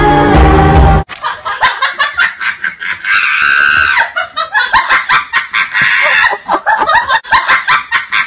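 A second of music that cuts off abruptly, then a young man laughing hard in quick, repeated bursts.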